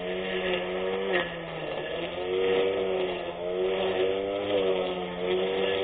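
24V brushless electric grass cutter running, its motor whine dipping in pitch and recovering every second or so as it cuts through grass, with a sharp tick about a second in.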